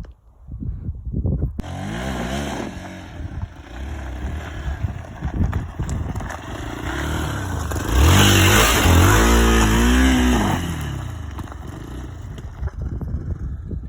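Motorcycle engine revving and accelerating, its pitch rising and falling, loudest and closest from about eight to ten seconds in, then fading.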